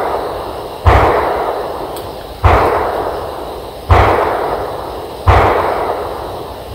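Four gunshots about a second and a half apart, each a sharp crack with a deep thump that rolls off in a long echo.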